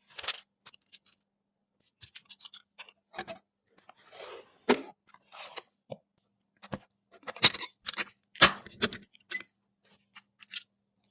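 Hands handling PC components and packaging: irregular sharp clicks and taps with a short stretch of scraping and rustling, the loudest clicks a little past the middle.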